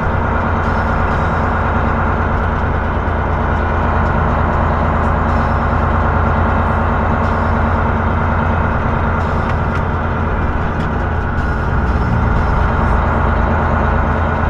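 Heavy truck's engine running steadily under way, a loud low drone heard from inside the cab.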